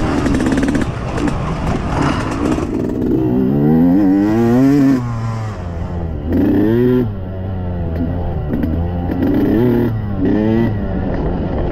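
Yamaha YZ125X two-stroke dirt bike engine revving up in several surges, its pitch climbing on each pull of the throttle and dropping off between them.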